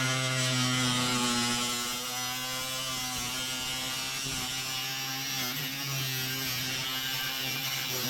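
Electric power tool motor running continuously with a steady whine, its pitch and level dipping slightly about two seconds in as it takes load.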